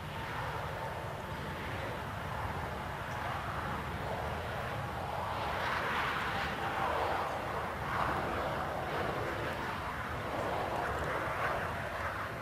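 Jet airliner engines heard as a steady rush that swells about halfway through, as the aircraft passes.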